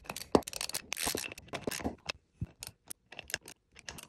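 Hand socket ratchet clicking in short, uneven runs while turning the bolts of a bearing retainer cap on a steel bearing block, with light metal clinks and scrapes between strokes.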